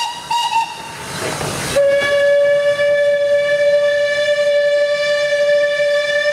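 Steam locomotive whistle sounding in short, broken blasts, followed by a rush of steam hiss. About two seconds in, a single steady lower tone cuts in abruptly and holds.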